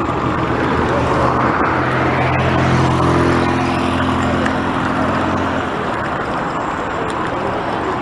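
Steady wind and road rush on the microphone of a moving bicycle, with a motorcycle engine running close by from about two to six seconds in. The engine is loudest around three seconds.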